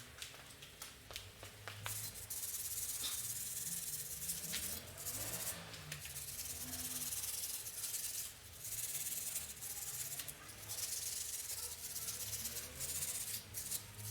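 Rasping, scraping noise in long strokes of a second or two with short breaks between, and a few clicks.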